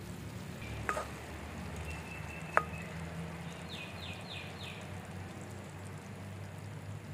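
Steady low background rumble, broken by a click about a second in and a sharper, louder click a little later, then four quick high falling chirps in a row.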